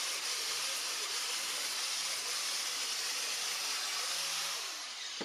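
Corded angle grinder running steadily against the tack welds on steel Unistrut, cleaning them up, its motor pitch wavering slightly under load. It winds down near the end.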